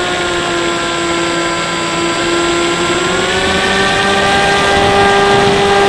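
Bixler 3 RC plane's electric motor and propeller whining steadily over wind rush, heard from a camera on the plane. The pitch holds lower, then rises about three seconds in as the throttle is opened a little.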